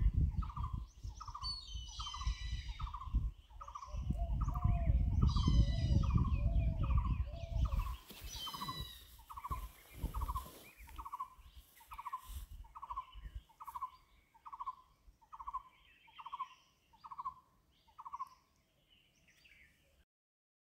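A bird repeating one short call note about one and a half times a second, evenly and without a break, stopping near the end. Higher, brief descending calls of other birds come in now and then. A low rumble, the loudest sound, runs under the first eight seconds or so and then stops.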